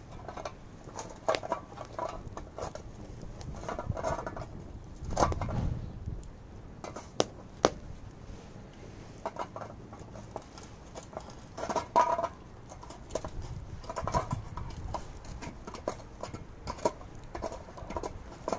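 Wood fire crackling in a steel fire pit, with scattered sharp pops, mixed with the scrape and knock of a hot metal paint tin being handled in gloved hands.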